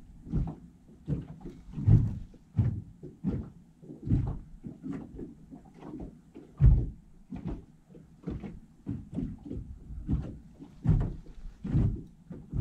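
Irregular low knocks and thumps, about two a second, loudest about two seconds in and again around seven seconds in.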